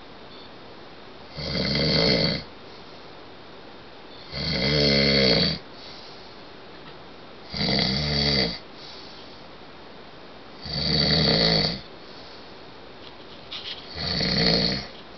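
A sleeping man snoring loudly in a steady rhythm: five snores, each about a second long, about three seconds apart.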